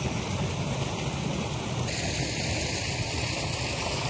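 Steady rush of a small stream's flowing water, with a low rumble of wind on the microphone.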